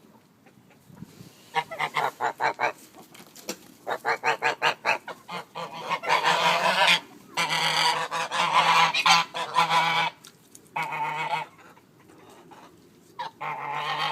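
Pomeranian geese honking: first quick runs of short honks, then longer stretches of loud, drawn-out honking, with a pause of a second or two before the honking starts again near the end.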